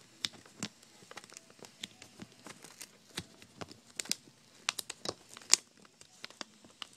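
Irregular small clicks and crinkles from fingers and fingernails working at the tape-covered display ribbon-cable connector on a laptop LCD panel, prying under the cable to unplug it, with one sharper click about five and a half seconds in.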